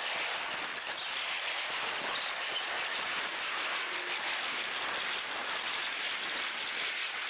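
Freight train cars rolling past, played at eight times speed, so the wheel-and-rail noise comes across as a steady high rushing hiss with almost no low rumble.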